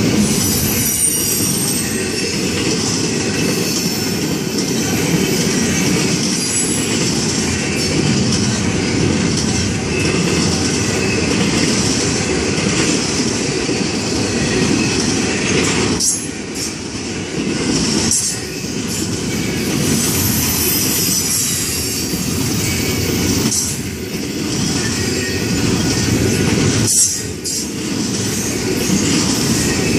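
Double-stack intermodal freight cars rolling past at speed: steel wheels on rail making a steady loud rumble with a thin high wheel squeal over it. The noise dips briefly a few times as the cars go by.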